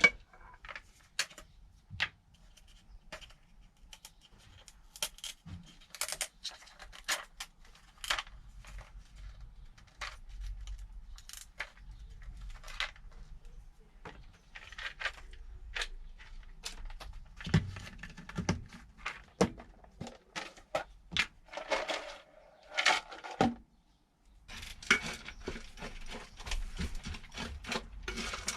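Small household objects being handled: irregular clicks, clinks and rustles, with a short quiet gap near the end.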